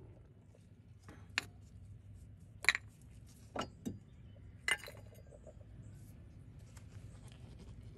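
About five separate sharp metal clinks and knocks over a few seconds, the loudest near three seconds in. These are tools, bolts and a removed motor mount being handled during a mount replacement.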